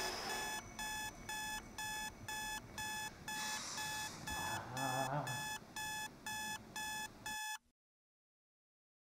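Electronic alarm beeping in a rapid, steady train of short high tones, about three a second, the wake-up alarm going off. It cuts off abruptly about seven and a half seconds in, leaving silence.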